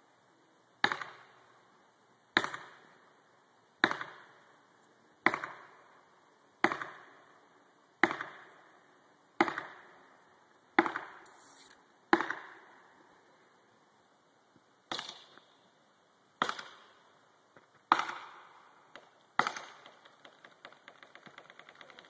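Sharp, heavy blows struck at the base of a tall conifer, about one every second and a half, each with a short echo. After the ninth blow there is a pause of nearly three seconds, then four more.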